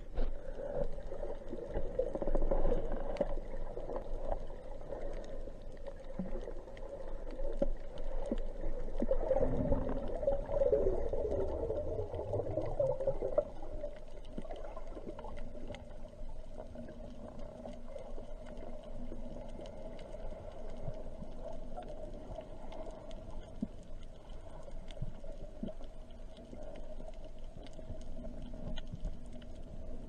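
Underwater ambience heard through a camera's waterproof housing: a muffled steady hum with scattered faint clicks and crackles. It is louder and swirling with water movement during the first half, then settles.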